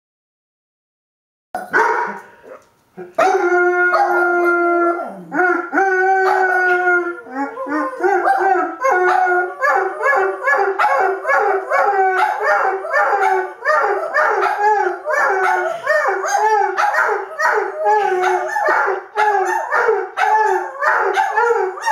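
Doberman howling. After a second or so of silence come a few long, steady howls, then from about seven seconds in a fast string of short, wavering howling notes, two or three a second.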